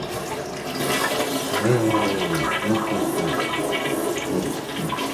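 Tank toilet flushing after its handle is pressed: water rushes through the bowl with a gurgle, swelling about a second in and running on steadily.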